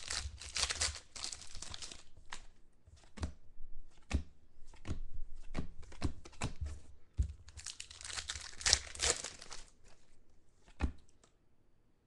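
Crinkly plastic wrapping of a trading-card pack being torn and crumpled by hand. It comes in two spells, at the start and again about eight seconds in, with light clicks and snaps of the cards being handled in between.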